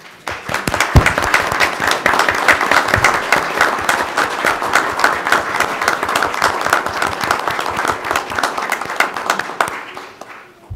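Audience applauding. The clapping builds up in the first second, holds steady, then dies away near the end.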